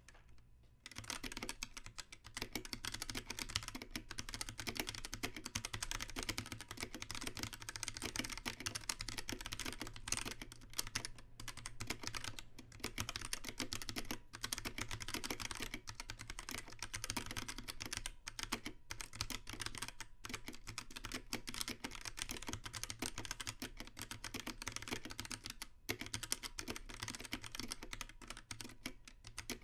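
Continuous fast typing on a 60% mechanical keyboard with SMK orange switches, a steel plate, WASD keycaps and a plastic case: a dense patter of key clicks and clacks that starts about a second in, with a few brief pauses.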